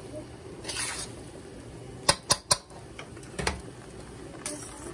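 Metal spoon stirring and scraping fried rice around a wok, with three sharp metal clicks close together about two seconds in and another knock a second later, as the spoon strikes the wok.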